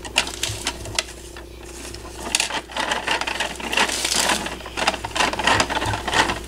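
Bruder toy garbage truck's hand-cranked plastic compactor clicking and rattling as toy garbage is worked down through the hopper. The clicks are sparse at first and come thick and fast from a couple of seconds in.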